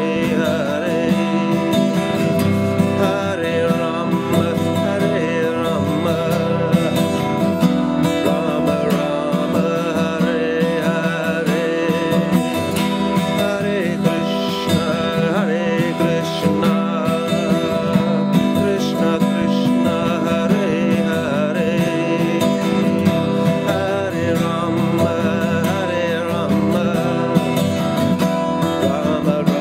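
Steel-string acoustic guitar being strummed.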